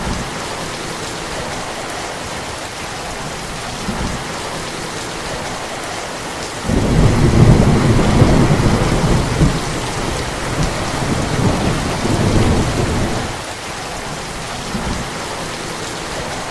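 Steady rain with a long roll of thunder, its low rumble growing loud about seven seconds in and dying back after about six seconds.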